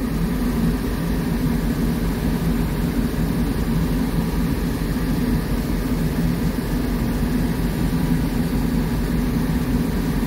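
Diesel locomotive engine idling, heard from inside the cab as a low, even hum.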